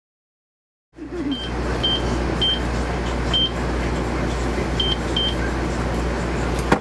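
After about a second of silence, a steady low hum and background din of a blood-donation room, with short high electronic beeps from the donation equipment, six in all at irregular intervals.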